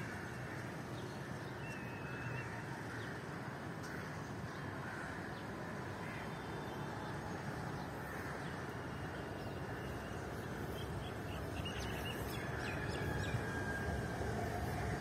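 Outdoor ambience: a steady background rumble with birds calling now and then, the calls coming more often in the last few seconds.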